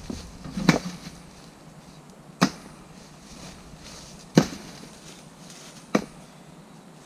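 Splitting axe striking logs four times, a sharp chop every one and a half to two seconds, the third blow the loudest.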